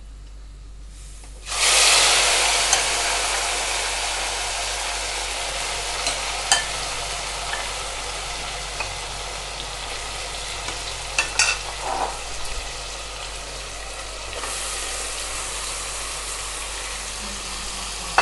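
Marinated mutton and onions dropped into hot mustard oil and ghee in a pressure cooker: a loud sizzle starts suddenly about a second and a half in and slowly eases off. A few knocks and scrapes of a spatula against the pot come as it is stirred.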